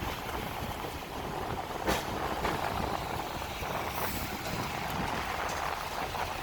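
Hong Kong electric tram running, a steady rumble and rattle, with a sharp knock about two seconds in and a short hiss about four seconds in.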